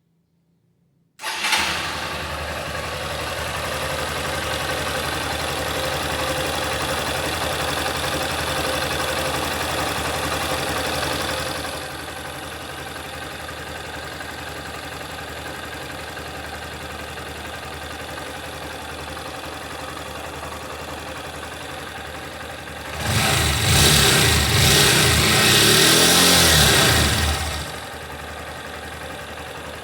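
Honda CG Start 160's single-cylinder engine started on the button about a second in. It idles a little faster for about ten seconds, then settles to a steady, lower idle, and is revved for about four seconds later on before dropping back. It is running smoothly, with none of the valve-train 'tec-tec' tapping this engine is known for.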